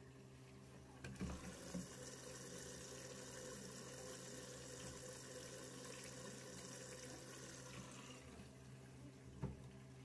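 Candy washing machine in test mode filling with water: a faint steady hum with water running in through the detergent drawer, and a few light knocks about a second in and one near the end.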